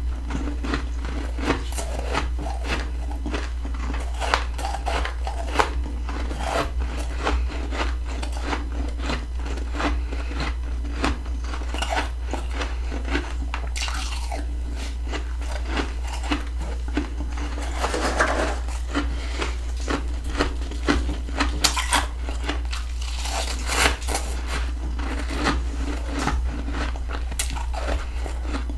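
Close-up crunching of freezer frost being bitten and chewed, a dense, irregular run of crisp crackles and crunches, over a steady low hum.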